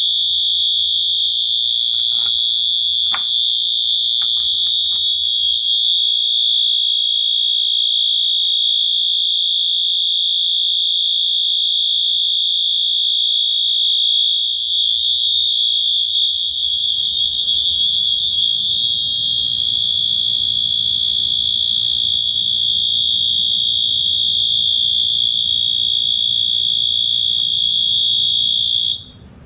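Wheelock MT24-LSM fire alarm horn, set to low volume continuous, sounding one steady high-pitched tone while the system is in alarm from a pulled manual pull station. The tone cuts off suddenly near the end.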